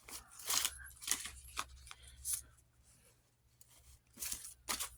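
Paper banknotes and a paper cash envelope being handled, a string of short rustles and crinkles, with a brief pause just after halfway.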